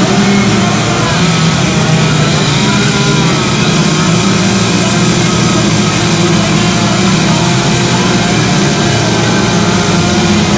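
Petrol chainsaw running steadily as it carves wood, its engine note wavering a little with the cut.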